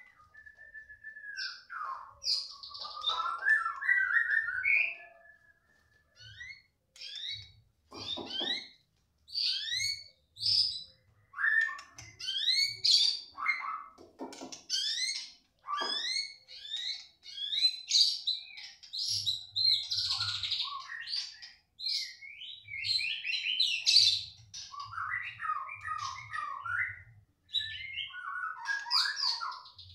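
White-rumped shama song: a run of rapid, varied phrases of quick rising and falling whistles and chatters, each phrase about a second long with short pauses between. The song is that of shamas answering one another, a young wild-caught bird stirred up by another shama's voice.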